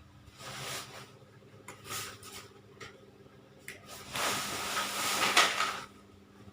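Electric egg incubator running with a steady low hum, overlaid by several bursts of rustling, scraping handling noise; the longest and loudest runs from about four to six seconds in.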